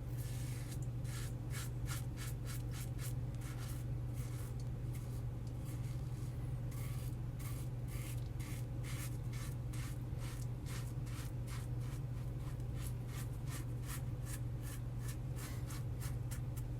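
Brass Karve Christopher Bradley safety razor, set on its D plate, scraping through lathered stubble in a quick series of short strokes. A steady low hum runs underneath.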